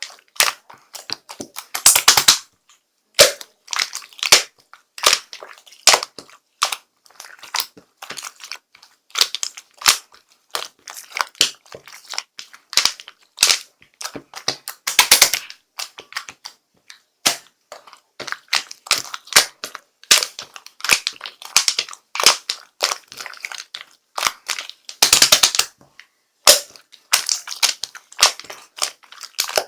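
Rapid, irregular sharp crackling and snapping clicks in quick clusters with short gaps between them, with a few longer, louder crunching stretches about two seconds in, around fifteen seconds in and around twenty-five seconds in.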